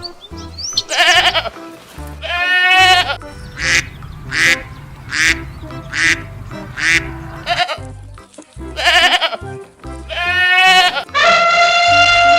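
Repeated quavering bleats from a farm animal: about ten calls, several short ones in quick succession in the middle and a long drawn-out bleat near the end, over background music with a steady beat.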